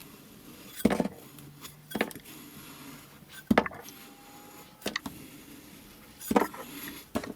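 Kinetic sand being worked in a satisfying-ASMR clip: about six sharp taps and knocks at uneven intervals, over a faint steady background.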